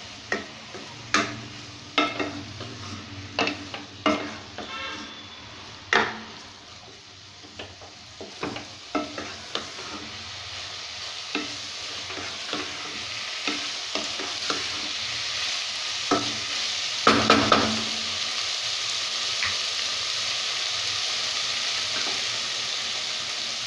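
A wooden spatula scraping and tapping in a nonstick pan, stir-frying sliced mushrooms and vegetables in soy sauce. Irregular taps come thickest in the first half, with a cluster about two-thirds in, while the sizzle grows louder and then holds steady.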